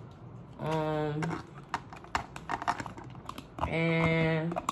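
Light clicking and tapping of plastic takeout containers and utensils being handled, with a woman twice humming a held note.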